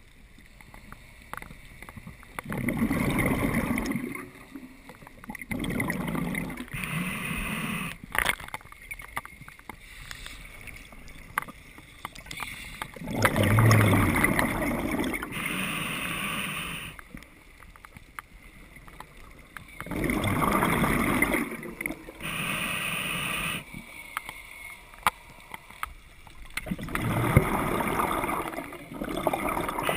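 Scuba diver breathing through a regulator underwater: each breath is a hiss followed by a burst of bubbling exhaust, about four breaths a few seconds apart.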